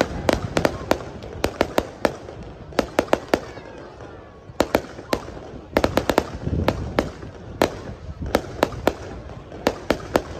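Fireworks display: aerial shells bursting with many sharp cracks and pops, often in quick clusters, over a low rumble, with heavier booms near the start and about six and a half seconds in.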